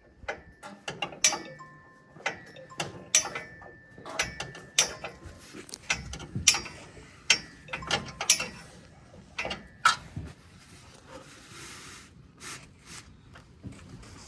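Hand tools clicking and clinking on metal fittings while the old front brake line is being unfastened at the wheel. The clicks come irregularly and grow fewer and quieter after about ten seconds.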